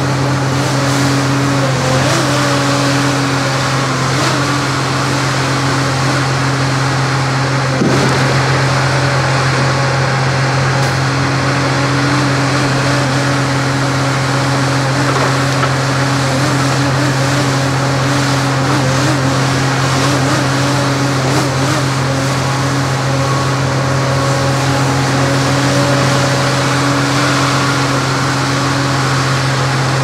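Diesel engine of a Tigercat 234 knuckleboom log loader running steadily at an even pitch as it loads logs onto a trailer, with a single knock about eight seconds in.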